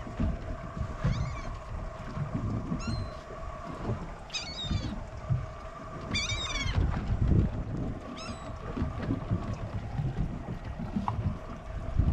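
About five short, high-pitched mewing animal calls, each rising and falling, spaced a second and a half to two seconds apart. Under them run a steady hum and a low rumble of wind or water.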